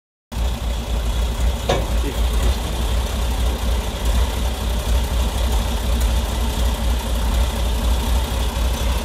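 1974 Unic 2744T tipper truck's diesel engine idling steadily, with a low, even throb.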